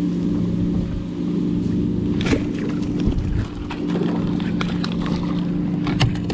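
A steady motor hum over a low wind rumble on the microphone, with scattered clicks and knocks from handling the baitcasting rod and reel.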